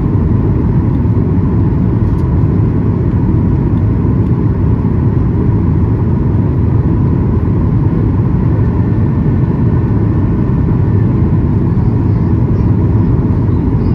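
Cabin noise inside a Boeing 737-800: the steady rumble of its CFM56-7B engines and the airflow, with a faint steady hum above it, unchanging throughout.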